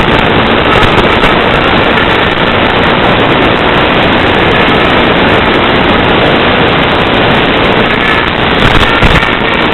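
Steady, loud static hiss with no tones or rhythm, the noise of an analog FPV downlink receiver's audio channel.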